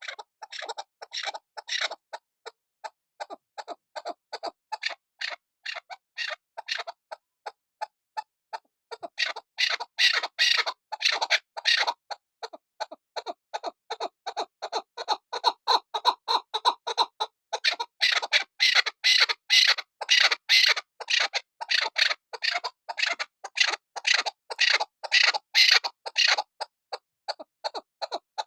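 Female chukar partridge (chakor) calling: a fast run of short, sharp notes repeated several times a second, briefly softer about eight seconds in, then louder from about ten seconds and again from about eighteen seconds.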